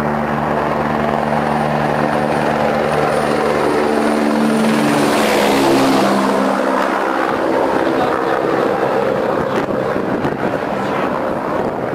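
Helicopter flying low overhead: the steady hum of its engine and rotor grows, drops in pitch as it passes over about halfway through, and is loudest just after. Then it gives way to a broad rushing noise as the helicopter moves off.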